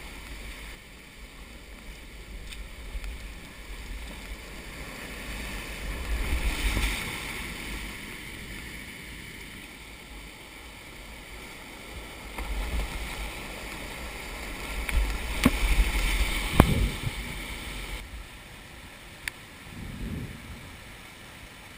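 Whitewater rapids rushing and splashing around a small paddled boat, heard close up with wind buffeting the microphone. The splashing swells about 6 to 7 seconds in and again around 15 to 17 seconds, with a couple of sharp knocks, then settles into a quieter, steady rush of the rapid near the end.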